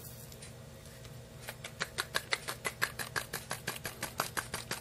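Lead 00 buckshot pellets clicking as they are worked into a 12-gauge shotgun hull: a fast, even run of small sharp clicks, about six a second, starting about a second and a half in.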